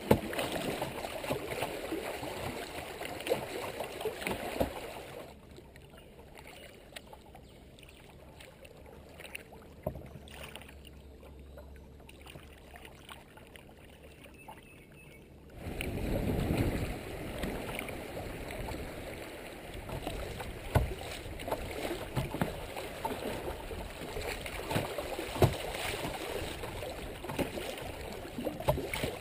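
Shallow creek water rushing and splashing around a kayak's bow as it runs a riffle, dropping to much quieter water for about ten seconds in the middle as the kayak glides through a calm stretch, then rising again into another riffle.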